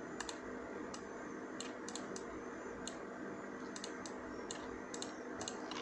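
Faint, irregular clicks of a computer mouse and keyboard, a dozen or so spread across the stretch, over a steady low hum.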